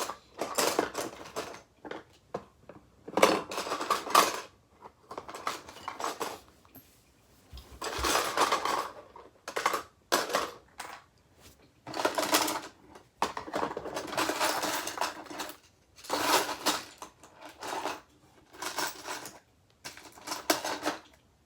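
Small metal bolts and screws clinking and rattling as they are picked through by hand, in short bursts a second or two apart.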